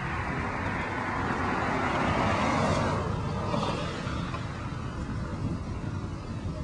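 A vehicle passing on the road, its tyre and engine noise swelling to a peak about two and a half seconds in and then fading away, over a steady low rumble.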